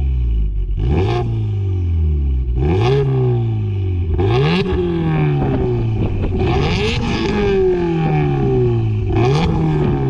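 Car engine revved hard again and again while driving in deep snow. Its pitch jumps up quickly and sinks slowly about five times, with a rushing, scraping noise at each burst of throttle.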